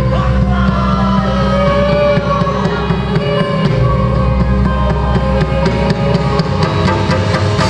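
Live Javanese gamelan music: struck metal instruments and frequent drum strokes, with a wavering melodic line over sustained tones.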